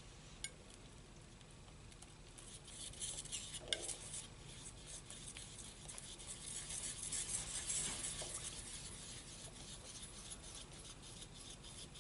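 Metal palette knife scraping and spreading oil paint across a palette, a soft scratchy scraping that builds about two seconds in and fades near the end, with a faint click about half a second in. The paint is getting a little dry and starting to stick to the knife.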